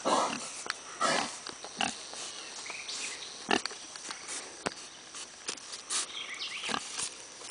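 Young blue butt gilts grunting as they explore, with irregular louder grunts at the start and about a second in, and a few short sharp knocks among them.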